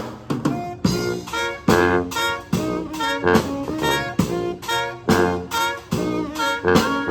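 Jazzy music with horns playing short, punchy notes over a steady beat.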